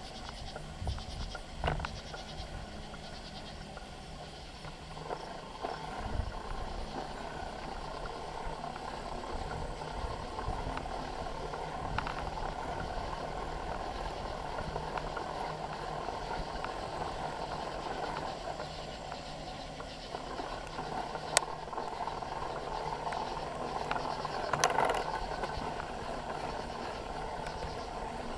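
Bicycle riding, heard from a handlebar-mounted camera: steady rolling tyre and drivetrain noise, with a few sharp clicks and a louder clattering patch about 25 seconds in.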